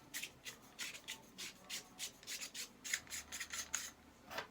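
Castle nut being spun by hand down the threads of an AR-15 buffer tube: a quick, even run of short scraping rasps, about four or five a second, as the metal threads rub.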